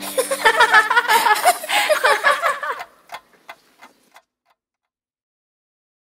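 Cartoon children and animals giggling over a pendulum clock's ticking; the laughter stops under three seconds in, leaving a few ticks that fade away, then silence.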